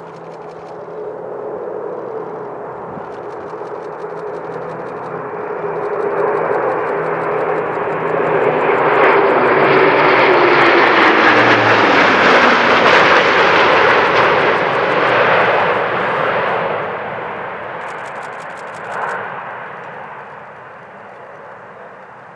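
Airbus A400M Atlas transport's four turboprop engines flying low past. The propeller drone swells over several seconds, peaks about halfway through with its pitch falling as the aircraft passes, then fades away.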